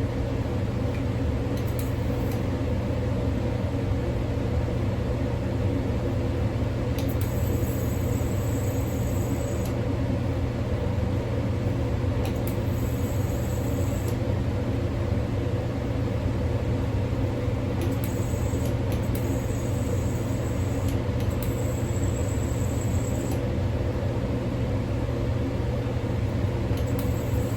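Ultrasonic dental scaler switched on and off several times while its water flow is tested, giving a high-pitched whine for one to three seconds at a time. Under it runs a steady low hum.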